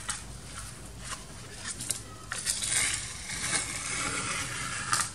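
Paper being handled by hand: an uneven crackling rustle in several stretches with sharp clicks, the loudest just before the end.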